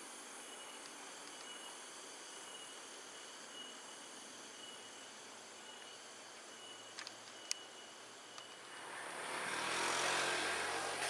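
Crickets and other insects chirping steadily, with a repeated high chirp and a few sharp ticks around seven seconds in. About nine seconds in, the rising hum and rumble of an approaching diesel passenger train swells in and keeps growing louder.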